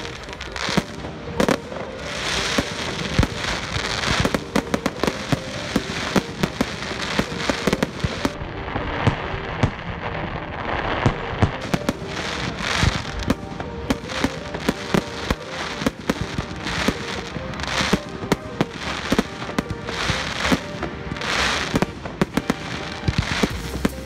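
Aerial fireworks at a display: a rapid, irregular run of sharp bangs from bursting shells, with crackling and fizzing from glittering stars between them.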